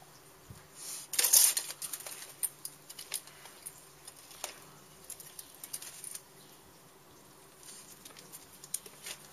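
Labrador sniffing and snuffling at a plastic robot toy dog, with a louder sniff about a second in, followed by scattered light clicks and scrapes.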